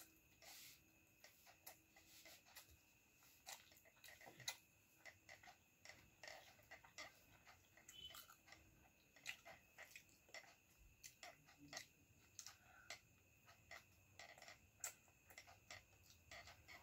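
Faint, irregular wet clicks and smacks of someone chewing and eating pasta by hand from a plate.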